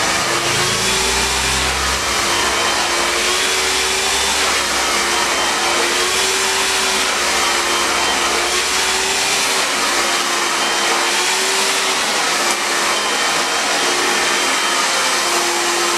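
Hand-held hair dryer blowing steadily: a rushing airflow with a motor hum whose pitch wavers slightly.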